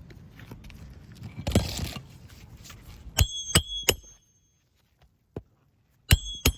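Hammer driving roofing nails into a replacement shingle: a brief rustle, then three quick ringing strikes about three seconds in and two more near the end.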